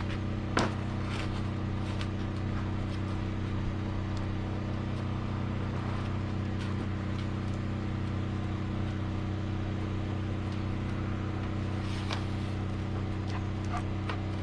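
An engine running steadily at constant speed, a low even hum, with a few light clicks and knocks early on and again near the end.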